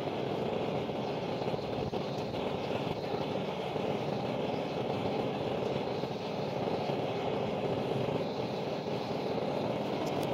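Brass gas blowtorch burning with a steady rushing noise, its flame directed into an upturned clay pot to heat a steel knife blade until it glows.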